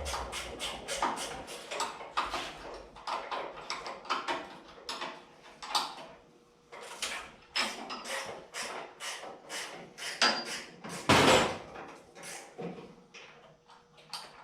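Socket ratchet clicking in quick, even strokes, about four or five clicks a second, as a bell housing or motor mount bolt is backed out. A louder, longer noise about eleven seconds in.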